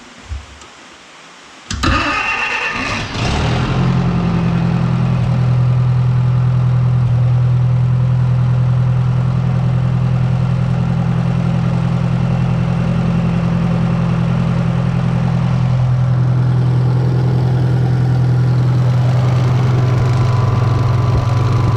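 International 300 tractor's four-cylinder engine cranked on the starter for about a second and a half, catching and settling into a steady idle. It is run to circulate a toilet-bowl-cleaner flush through the radiator.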